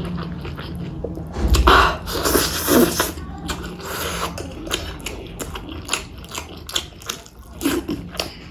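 Close-miked eating: chewing and wet mouth sounds with many small clicks, and a louder stretch about one and a half to three seconds in.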